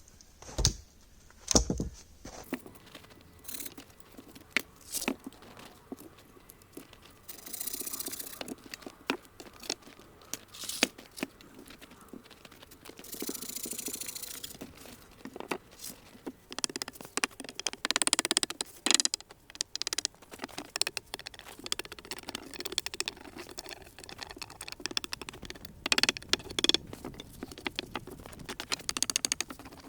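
Crunching and shuffling in crunchy snow, with scattered knocks and scrapes of wooden logs being laid down for a platform bed, and a few longer scraping or rustling stretches.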